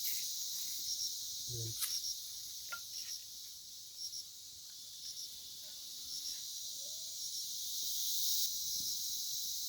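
Mustard seeds in hot coconut oil in a pan: a faint, steady high sizzle with a few sharp pops and crackles.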